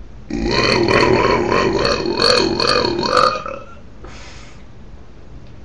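A long deliberate belch lasting about three seconds, its pitch wavering up and down as it goes, followed a moment later by a brief hiss.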